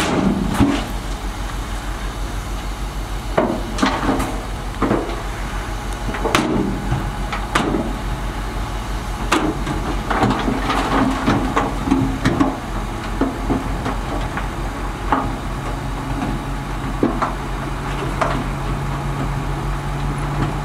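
Diesel engine of heavy earthmoving machinery running, with irregular sharp clanks and knocks of metal and soil. A steadier engine note joins about three-quarters of the way through.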